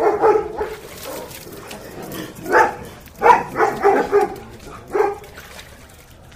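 A dog barking in short pitched barks: a few near the start, one about two and a half seconds in, a quick run of several just after, and a last one about five seconds in.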